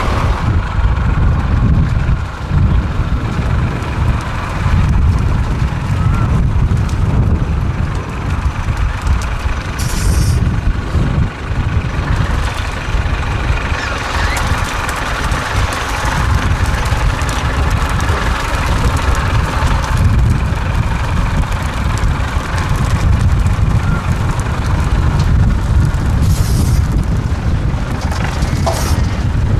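Diesel engine of an off-road trial truck running and revving at low speed as it crawls through a steep, rough section, louder from about twelve to twenty seconds in. Short hisses come about ten seconds in and twice near the end.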